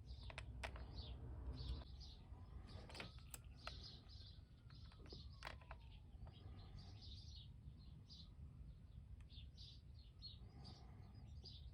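Faint background birdsong: small birds chirping again and again, with a few light clicks and taps.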